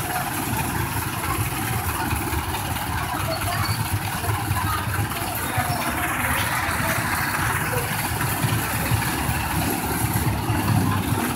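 Street traffic with a vehicle engine idling close by: a steady low rumble.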